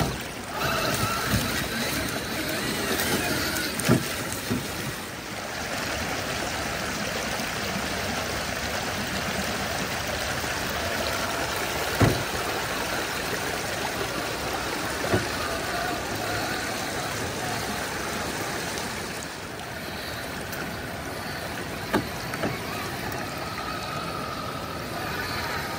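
Creek water running and splashing over rocks as a 1/6-scale Axial SCX6 Honcho RC crawler drives through it, its electric motor and gears whining faintly at times. A few sharp knocks sound as the truck clambers over the rocks.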